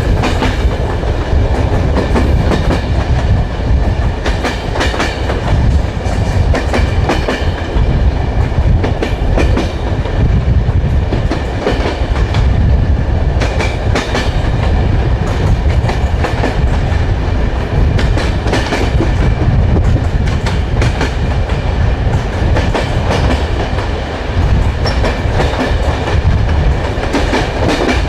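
Train wheels rolling on the track: a steady loud rumble broken by recurring clicks as the wheels cross rail joints, the clickety-clack of a moving train.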